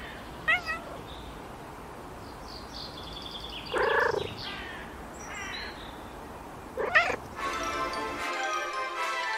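A domestic cat meowing several times: a short chirp about half a second in, a louder meow around four seconds and another near seven seconds. Music comes in about seven and a half seconds in.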